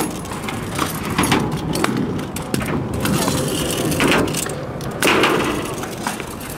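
Kick scooter's wheels rolling on skatepark concrete, with a few clattering knocks as the deck comes down and hits the ground on landings.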